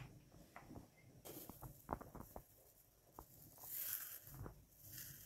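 Faint rustling and scattered small clicks of fingers scooping dried herbs out of a plastic tub, with a short crisp rustle about four seconds in.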